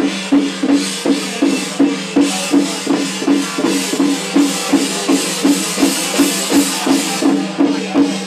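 Percussion music at a steady fast beat: a drum struck about two to three times a second, with cymbals crashing over it.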